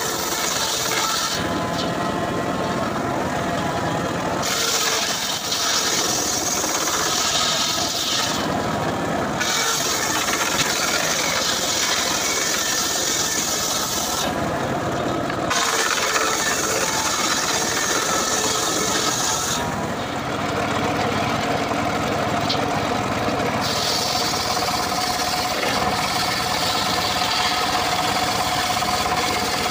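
Homemade bench circular saw ripping dry acacia wood: the loud cutting noise drops away four times, briefly or for a few seconds, as the blade runs free between passes, then bites into the wood again.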